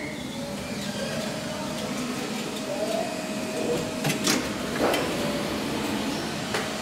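SMW machine-room-less traction elevator finishing its run. A steady mechanical hum and whine, then a few sharp clicks and the car doors sliding open about two thirds of the way in.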